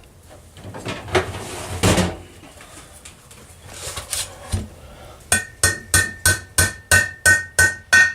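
Light hammer taps driving the sealant-coated water intake plug into a Johnson 5.5 hp outboard's lower unit housing. After a few scattered knocks and handling sounds, a steady run of sharp taps begins about five seconds in, about three a second, each with a short metallic ring.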